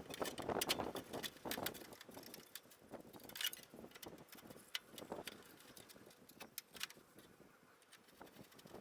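Irregular clicks, clinks and knocks of tools and metal parts being handled, thick in the first two seconds and sparser after.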